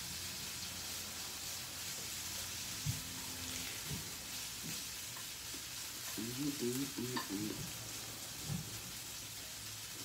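Food sizzling steadily in a frying pan on the stove, with a few light clicks and a brief muffled hum about six seconds in.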